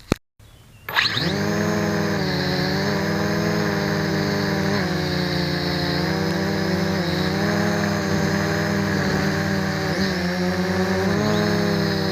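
MJX X400 V2 quadcopter's motors and propellers spinning up about a second in, after a short click. They then run steadily with a buzzing whine whose pitch wavers a little as the throttle changes.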